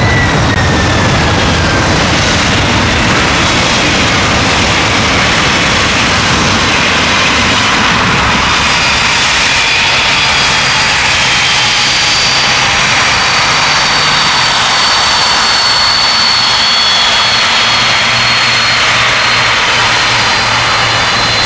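Jet airliner engines running loud and steady, a broad roar with high whining tones on top.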